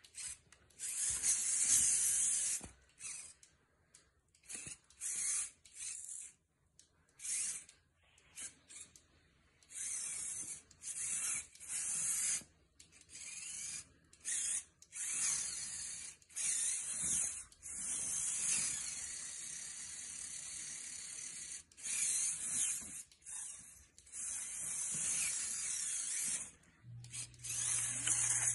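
Small electric gear motors of a RoboRobo kit robot whirring in many short stop-start bursts as it is driven forward, backward and turned.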